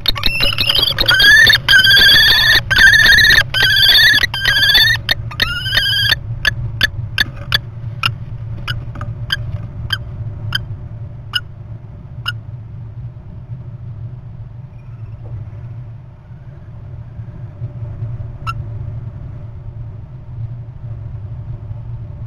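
Common kestrels calling in a nest box during a food pass. A run of loud whining calls fills the first six seconds, with short sharp tick-like calls repeating about twice a second that fade out by about twelve seconds in. A steady low hum runs underneath.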